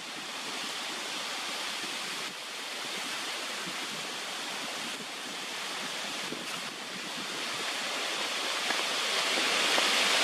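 Steady outdoor rushing noise with no distinct events, growing louder near the end.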